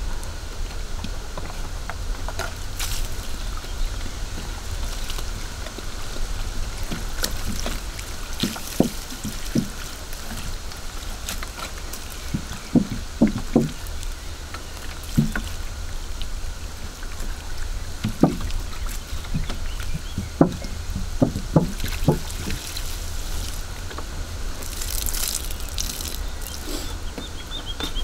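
Water pouring from a plastic jug onto loose forest soil, splashing and trickling steadily, with short glugs from the jug now and then.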